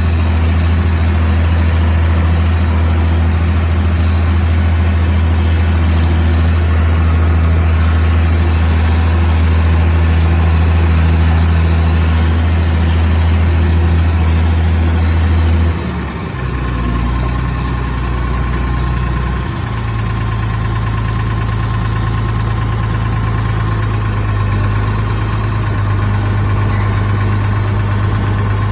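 Oliver 1850 tractor's engine running steadily as the tractor is driven, heard from the seat. A little over halfway through its note changes abruptly, dipping briefly in level before settling at a new steady drone.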